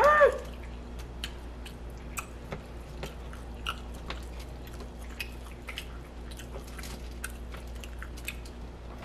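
Metal knife and fork cutting sauce-covered baby back ribs in an aluminium foil tray, with scattered light clicks of the cutlery against the meat and foil.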